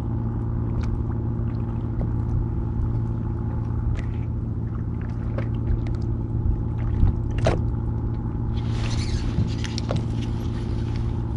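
Steady low drone of an idling boat engine, with scattered light clicks and knocks. A hiss joins in about three-quarters of the way through.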